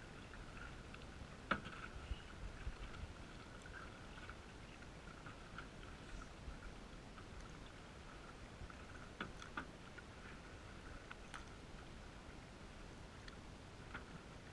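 Canoe paddling, muffled by a waterproof camera housing: faint water noise with a few sharp knocks, the loudest about a second and a half in, a pair about nine seconds in, and another near the end.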